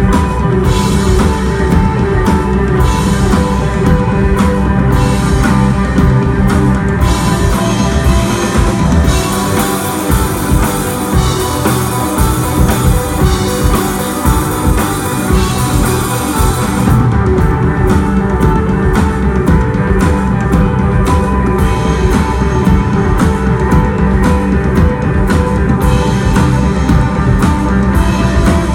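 A desert rock band playing loud psychedelic rock live, with electric guitar, bass and drum kit. The drum and cymbal hits thin out for a smoother stretch in the middle and come back in hard about seventeen seconds in.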